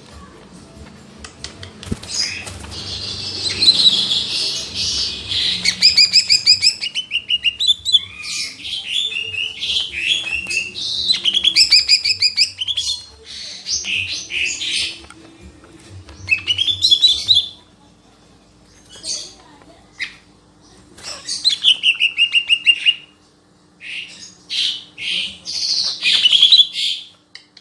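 Cica ijo (a leafbird) singing a long, varied song of rapid trills, chirps and whistled slides, in bursts broken by short pauses. A faint steady hum sits under it.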